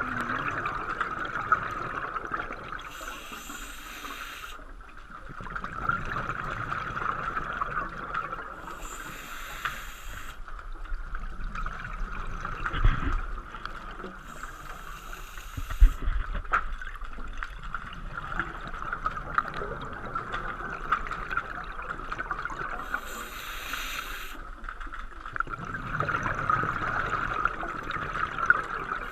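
Scuba diver breathing through a regulator underwater, one breath about every five to six seconds, over a steady hum. Two dull thumps near the middle.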